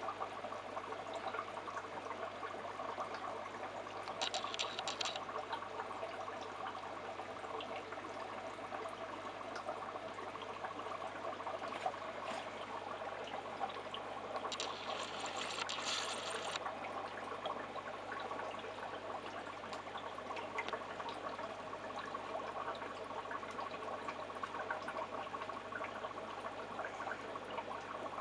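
Steady trickle of circulating fish-tank water over a low steady hum, with two short, brighter spells of water noise about four and fifteen seconds in.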